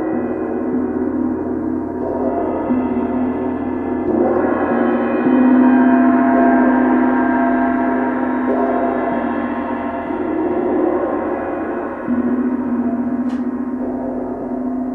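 Paiste 28-inch Symphonic gong and two vintage Sonor cymbals (18- and 22-inch) played together with felt mallets, making a continuous dense wash of overlapping ringing tones. The wash swells with fresh strokes about four seconds in and again around twelve seconds.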